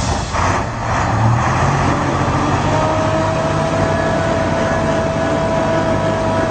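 Heavy diesel trucks' engines running hard under full load as a Ural and a KAMAZ pull against each other through a tow bar. A steady high whine joins the rumble about three seconds in.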